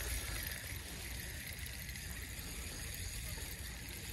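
Spinning reel being cranked steadily during a fish retrieve: a soft, even whir with no clicks, over a low wind rumble on the microphone.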